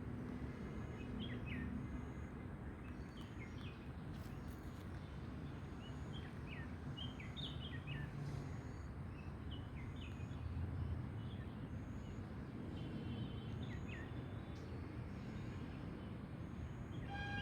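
Birds chirping here and there in short calls over a steady low background rumble.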